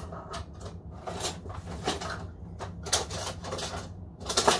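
Rummaging through a kitchen drawer for a teaspoon: utensils clattering in a series of short rattles, loudest near the end, over a steady low hum.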